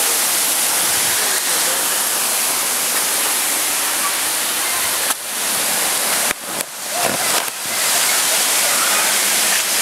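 Rushing water of a small mountain waterfall cascading over boulders: a steady loud hiss, with a few brief dips between about five and eight seconds in.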